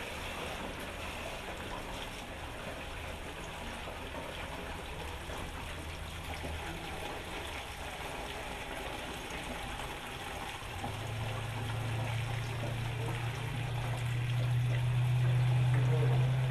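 Clear liquid poured steadily from a plastic jug into a large metal funnel, trickling and splashing. A low steady hum comes in a little past the middle and grows louder toward the end.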